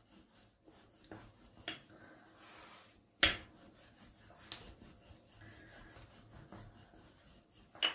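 Wooden rolling pin rolling back and forth over a stack of thin dough rounds on a silicone mat. A faint rubbing, with a few light knocks, the loudest about three seconds in.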